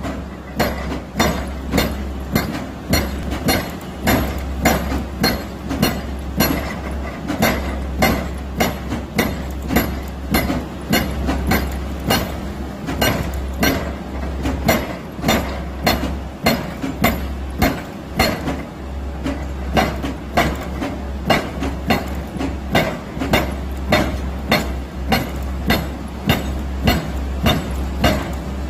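JSC Ares A1000S (JSB210) hydraulic breaker hammering rock, its chisel striking in a steady rhythm of about two to three blows a second, over the low, steady drone of the carrying excavator.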